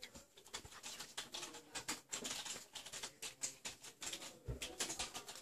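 Slime being squeezed and worked in the hand, giving a rapid, irregular stream of small wet clicks and pops.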